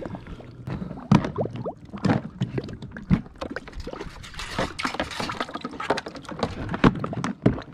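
Shallow water sloshing and splashing around a floating plastic crab tub as a blue swimmer crab goes in from a wire scoop net, with several sharp knocks against the tub.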